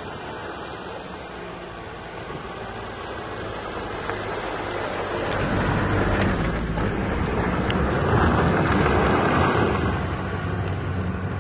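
Nissan Patrol 4x4 driving slowly through mud at low engine speed. The engine grows louder as the vehicle passes close about halfway through, then fades as it pulls away. A few sharp clicks come as it goes by.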